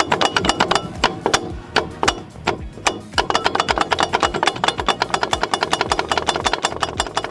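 Rapid knocking from a car's front brake disc that is loose on the hub because its retaining screw is missing, so the disc shifts and knocks under braking. About eight to ten knocks a second, with a steady tone joining about three seconds in.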